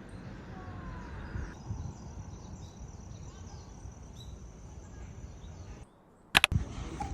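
Outdoor ambience: a steady noise bed with a few faint chirps and a thin, steady high tone. It cuts out about six seconds in, followed by two sharp, loud clicks.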